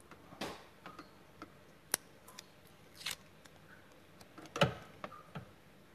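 Scattered small clicks, knocks and short rustles of things being handled and moved about on a desk. The loudest is a knock about four and a half seconds in.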